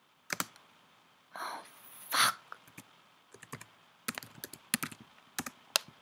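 Irregular clicks and taps of fingers on a laptop's keys and trackpad, with a short rustle about one and a half seconds in and a louder knock just after two seconds.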